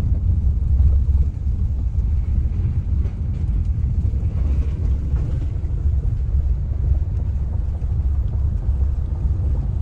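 Car driving across a plank-decked steel truss bridge: a steady low rumble of tyres and road noise, heard from inside the car.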